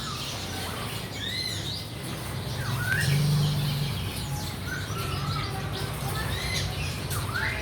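Many small caged songbirds chirping and whistling over one another in short, scattered calls, over a low steady hum that grows louder for about a second, around three seconds in.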